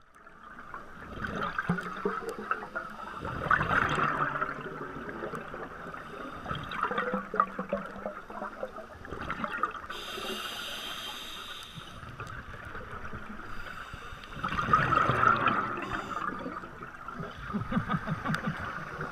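Scuba diver's breathing heard underwater: exhaled bubbles gurgling and rushing from the regulator, with louder bursts of bubbles about four seconds in and again about fifteen seconds in.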